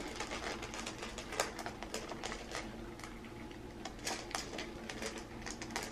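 Two puppies eating dry kibble from bowls: irregular crunches and sharp clicks as the pellets are chewed and knock against the bowls.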